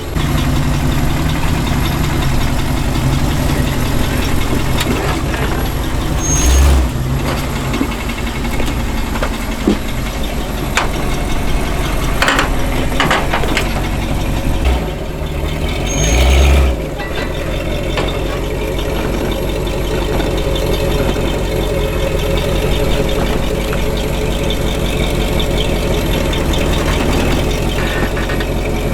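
Off-road vehicle engine running steadily at low speed on a trail, with two short louder bumps about six and sixteen seconds in.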